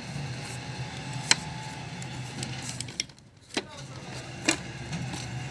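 A few sharp clicks and taps from handling the plastic housing and screws of a robot vacuum being taken apart, over a steady low hum.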